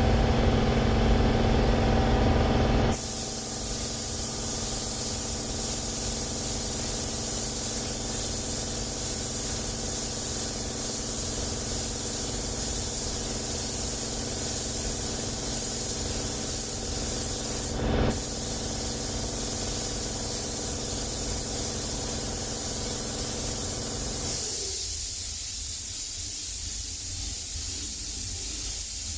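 Steady hiss of silver basecoat paint being sprayed onto alloy wheels, with a very short break in the spray about two-thirds of the way through. For the first three seconds a louder steady machine hum sounds under it, then drops away.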